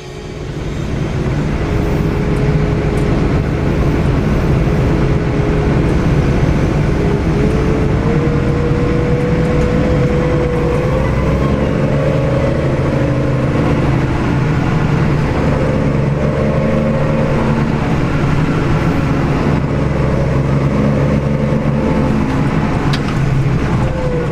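Diesel harvest machinery running steadily: a deep engine drone with a whining tone that climbs a little about eight seconds in.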